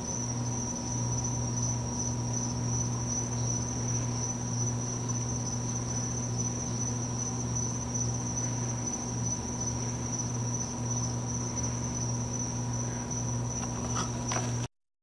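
A steady high-pitched insect trill over a constant low hum, with a few faint clicks near the end.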